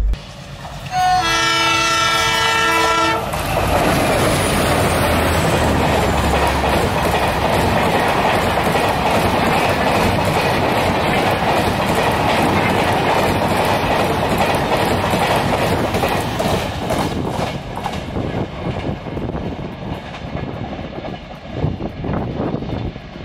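Express train hauled by twin WDM-3D diesel locomotives sounds a multi-tone horn for about two seconds, then passes at high speed close by. The rush of wheels and wagons stays loud for about fourteen seconds and fades away over the last few seconds.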